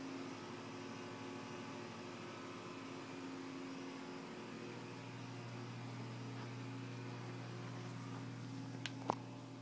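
Steady low hum with hiss, like a running machine or appliance, with two sharp clicks near the end.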